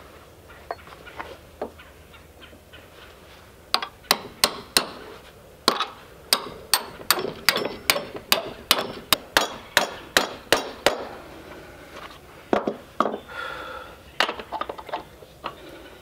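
Hammer blows on steel sawmill carriage axle hardware: a quick run of about twenty sharp, ringing metal strikes, roughly three a second, starting about four seconds in and stopping a little after halfway, with a few scattered knocks before and after.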